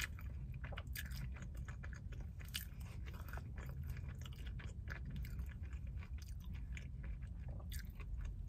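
Close-miked eating sounds: a person chewing and biting fast food, with many small irregular wet clicks and light crunches, over a steady low hum.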